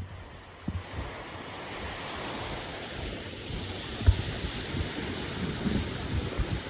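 Surf washing on the shore with wind buffeting the microphone. The noise swells about a second and a half in, and a sharp low thump stands out about four seconds in.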